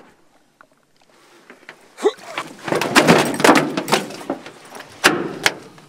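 A large Atlantic halibut hauled aboard an aluminium boat, thrashing and slapping on the metal checker-plate deck: a run of irregular thuds and knocks starting about two seconds in, then two sharp knocks near the end.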